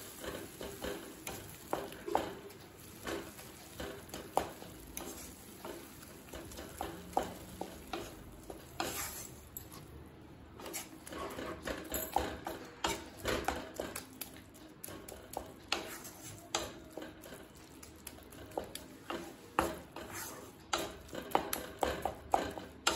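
A flat spatula mashing and stirring water-soaked, ghee-fried bread in a kadai, with irregular scrapes and taps against the pan.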